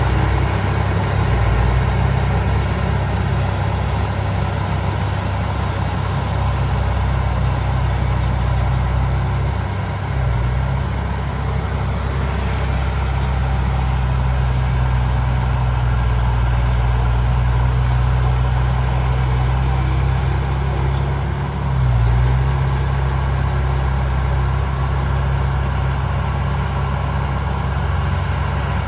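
Heavy diesel engine of earthmoving machinery running steadily, its note dipping and picking up again twice as the load changes. A brief hiss sounds about a third of the way through.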